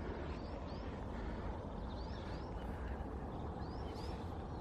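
A bird calling repeatedly with short rising chirps, often two in quick succession, over a steady low rumble.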